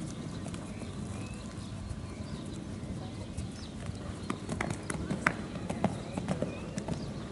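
Horse cantering on sand footing, its hoofbeats dull and muffled, with a few sharper clicks in the second half.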